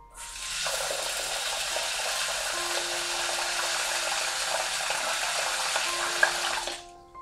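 Kitchen tap running a steady stream of water into a rice cooker's inner pot, filling it to rinse the rice; the water is shut off about a second before the end.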